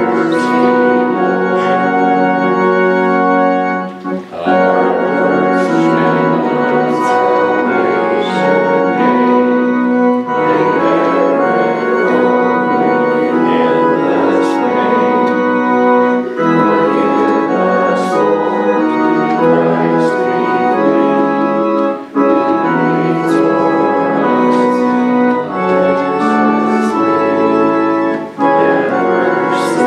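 Church organ playing a hymn in held chords that change every second or two, with short breaks between phrases, about four seconds in and again past the middle.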